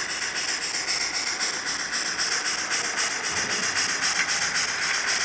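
Model steam locomotive's digital sound decoder playing steam chuffs: an even, quick rhythm of hissing exhaust beats as the engine runs along the layout.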